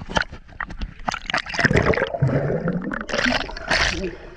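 Water splashing and sloshing in a swimming pool as people swim and play in it, in irregular bursts.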